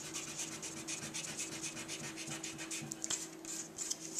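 Small rubber eraser on the end of a Faber-Castell Grip pencil rubbing quickly back and forth over pencil marks on paper: a fast run of scratchy strokes, erasing part of a scribble.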